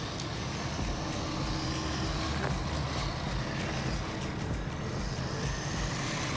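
A small 1:16 RC truck with a 390 brushed electric motor driving on rough concrete, its motor whine rising and falling over a steady low hum.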